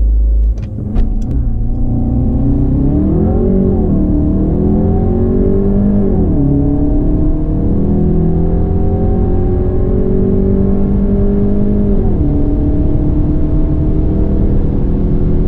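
Car engine heard from inside the cabin under full-throttle acceleration from a standstill. Its pitch climbs and drops sharply at three upshifts, about four, six and twelve seconds in. A few sharp clicks come in the first second or so.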